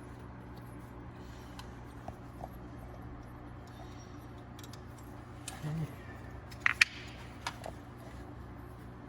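Hand tools on metal under the hood: a few light clicks, then two sharp metallic clinks in quick succession about two-thirds of the way in and one more shortly after, as a wrench works the fan's mounting nuts. A steady low hum runs underneath.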